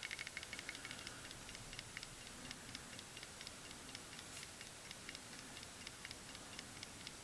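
Faint, even ticking, several ticks a second, over quiet room hiss.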